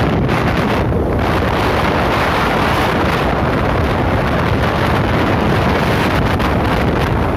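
Steady, loud wind rush over the microphone of a moving vehicle, with engine and road noise underneath.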